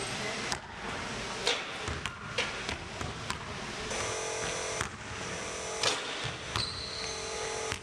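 Basketball sounds on a hardwood gym court: sharp ball bounces and impacts about once a second, then a dunk on the basketball rim near the end, the steel rim ringing briefly with a high tone.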